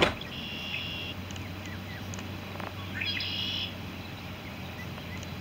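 A sharp click, then two short high chirping bird calls, the second rising into a held note near the middle, over a low steady hum.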